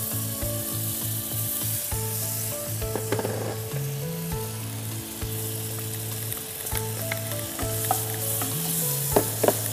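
Butter and garlic sizzling in a frying pan, stirred and scraped now and then with a wooden spatula. Soft background music of held notes runs underneath.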